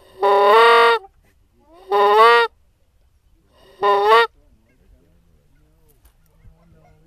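Three loud, drawn-out goose honks about two seconds apart, each under a second long, bending up in pitch at the end; the last is the shortest.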